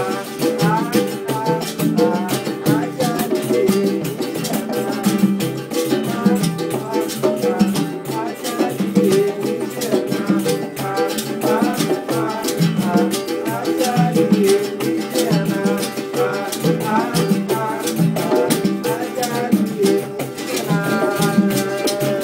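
Live acoustic Brazilian jam: congas and a hand drum keep a steady Latin groove under a strummed acoustic guitar and a berimbau, with a man singing over it.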